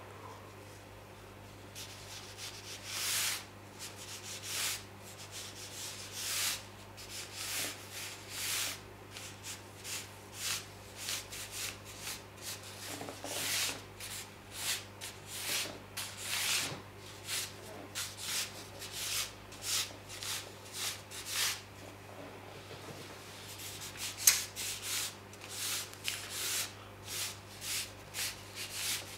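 Painting brush swept across paper in quick strokes, each a short soft swish, roughly one a second, over a low steady hum. A single sharp tap comes about three quarters of the way through.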